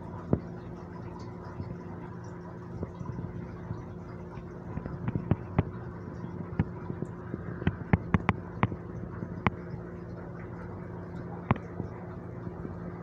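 Steady electrical hum with a scattering of sharp clicks and taps, most of them bunched around the middle.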